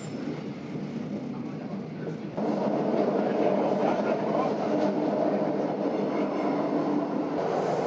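Electric metre-gauge train of the Aigle–Sépey–Diablerets line heard running from inside the carriage: a steady rumble of wheels on rail. It gets suddenly louder about two seconds in.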